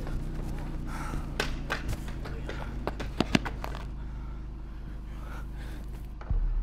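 A steady low hum with a few sharp taps and knocks scattered through the first half.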